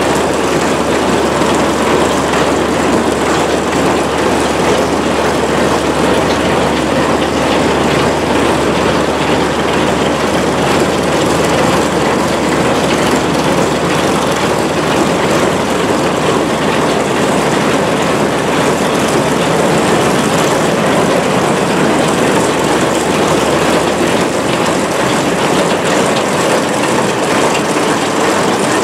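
СМ-2 railway snow-removal train running: a loud, steady mechanical din with a low engine hum underneath, the hum dropping away near the end.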